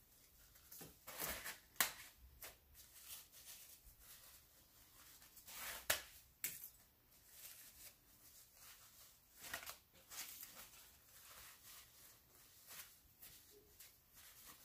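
Faint, scattered rustling and crinkling of toilet tissue being squeezed into little balls and pressed onto a glued paper plate, with two sharper taps, one near the start and one about six seconds in.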